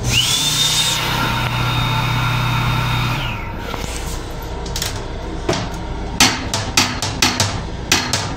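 Hand dryer built into the washbasin unit blowing for about three seconds, its motor whine rising as it starts and gliding down as it shuts off. After that, a run of sharp knocks and clicks as the plastic toilet seat lid is handled.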